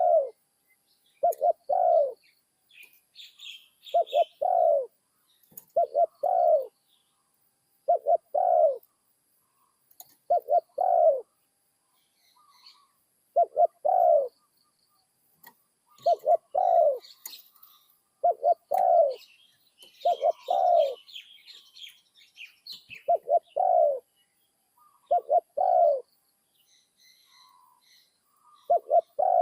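Spotted dove cooing: a newly trained cage bird repeating its short cooing phrase about every two seconds. Small birds chirp faintly in the background.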